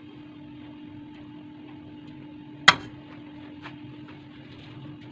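A single sharp mouse-click sound effect a little past halfway through, with a few much fainter ticks, over a steady low hum.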